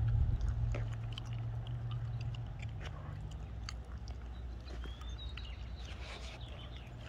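Footsteps on asphalt, a series of light scuffs and taps, over a low hum that fades out about three seconds in.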